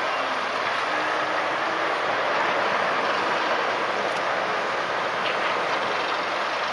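Steady rushing noise of a small boat under way on harbour water, its engine and water along the hull blending into an even roar.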